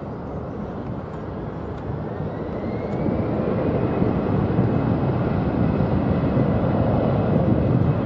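Boeing 777-200ER's twin Pratt & Whitney PW4000 turbofans passing overhead on approach. A broad jet roar grows louder about three seconds in and then holds, with a faint whine rising in pitch just before.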